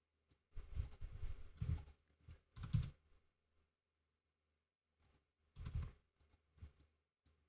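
Computer keyboard keystrokes and mouse clicks, a few short clusters of taps with a pause of about two seconds in the middle.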